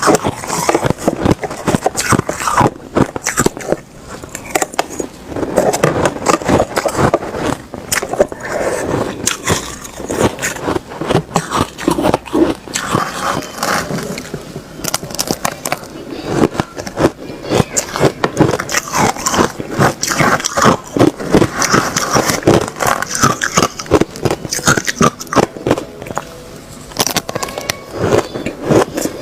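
Ice being bitten and chewed close to the microphone: a dense, irregular run of sharp crunches and crackles.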